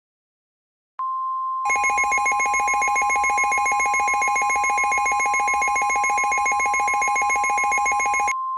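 Emergency alert attention signal. About a second in, a steady single-pitch tone of about 1 kHz starts, like the weather radio alert tone. Shortly after, a loud, rapidly pulsing ringing alarm tone joins it, then cuts off suddenly near the end, leaving the steady tone alone.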